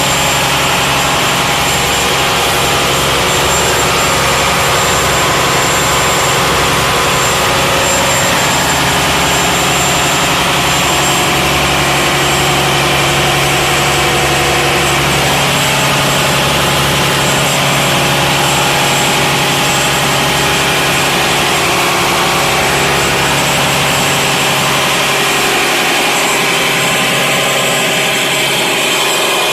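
Six-cylinder four-stroke Volvo marine engine running steadily and loudly.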